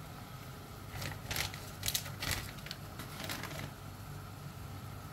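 Light kitchen handling sounds: about half a dozen short, faint clicks and rustles over a low steady hum.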